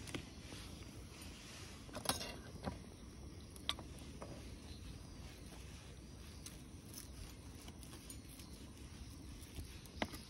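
A few sharp knocks of a kitchen knife striking a wooden cutting board while raw tuna is minced with green onions. The loudest knock comes about 2 seconds in and another near the end, over a steady low background noise.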